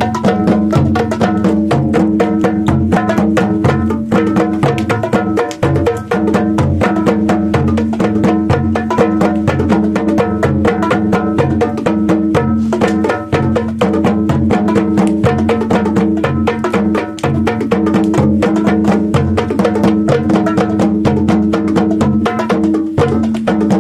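Hand drums played in a fast, dense, continuous rhythm, with a steady low tone held underneath.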